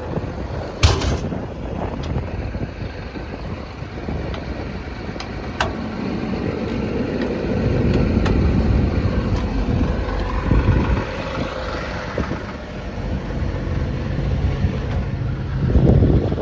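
Cummins diesel engine of an XCMG XE210 excavator running steadily with a low rumble, swelling a little about halfway through. A sharp knock sounds about a second in.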